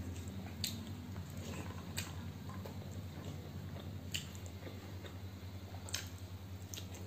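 Close-miked eating sounds: fingers squishing curry-soaked rice on a plate and a mouth chewing, with about four sharp wet clicks standing out, over a steady low hum.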